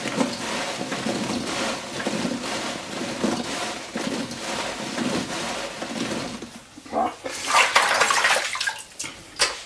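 Fried dough balls (Mutzenmandeln) being tossed by hand in sugar in a ceramic bowl: a continuous gritty rustling, with small ticks of the pastries knocking against each other and the bowl. Near the end comes a louder burst of rustling noise and a sharp click.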